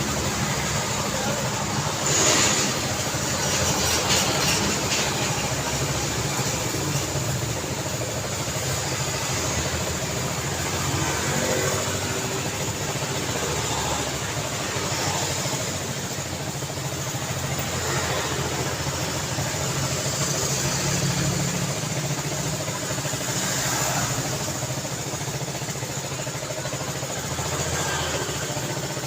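Road traffic: a steady mix of engines and tyre noise from passing vehicles, with louder passes about two and four seconds in.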